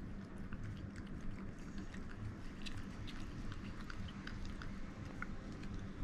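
A cat eating from a plastic spoon, with many small irregular licking and smacking clicks in quick succession.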